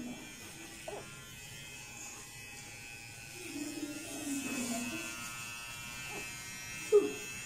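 Electric hair clipper running steadily as it trims a boy's hair. A short, sharp, louder sound comes about seven seconds in.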